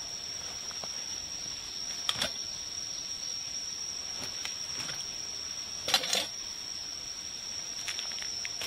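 Steady high-pitched insect drone from the forest, with a few short rustles and crunches of dry leaf litter and gear being handled, the loudest about six seconds in.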